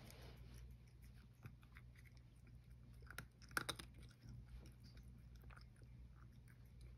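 Cat crunching dry kibble from a small bowl: faint, irregular chewing clicks, with a few louder clicks a little past the middle.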